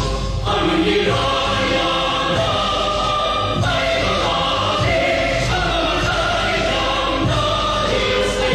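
Choral music: a choir holding long, slow-moving chords.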